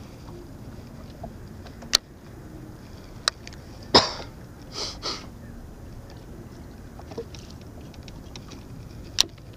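A person coughing: one loud cough about four seconds in, followed by two short, breathy bursts, amid a few sharp, isolated clicks.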